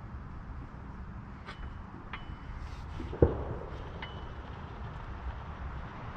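Small metal clicks with a brief high ring, and one sharp knock about three seconds in: a log splitter's wheel being fitted onto its axle and secured with a pin. A steady low rumble runs underneath.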